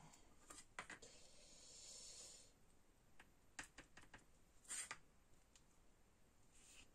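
Quiet handling of paper craft materials: a soft rustle of paper followed by a few light clicks and taps.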